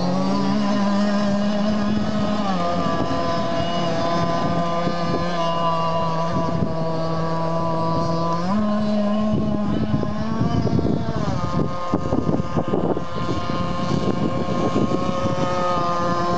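Zenoah 26cc two-stroke petrol engine of a radio-controlled racing boat running hard at speed, a steady buzz whose pitch steps up and down a few times. The note turns rough and uneven in the second half.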